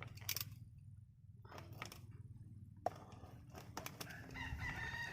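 Scattered clicks, scrapes and crinkles of a Bosch horn kit's cardboard box and packaging being handled, over a low hum. Faint clucking of chickens comes in near the end.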